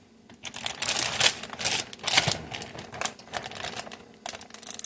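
Plastic zip-top freezer bag crinkling and rustling in irregular bursts as it is handled close to the microphone.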